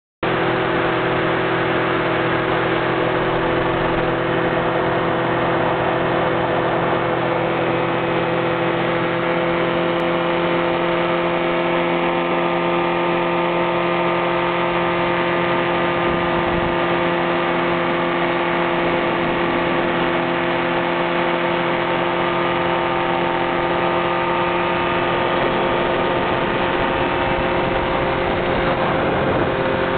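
Powered parachute's engine and propeller running in flight, a steady drone that holds one pitch, heard from aboard the craft over a rush of wind noise.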